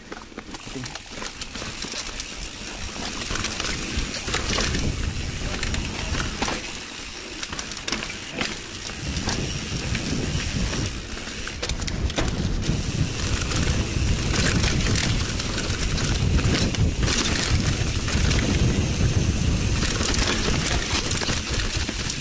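Mountain bike ridden fast over a dirt forest trail: tyres rolling and crunching over dirt and leaves, with the bike rattling and clicking over bumps and wind rumbling on the microphone.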